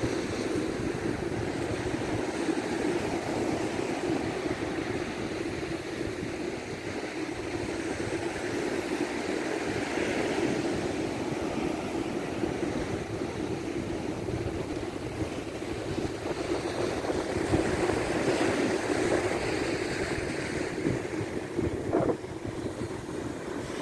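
Surf washing steadily onto the beach, mixed with wind noise on the microphone; the wash swells a couple of times.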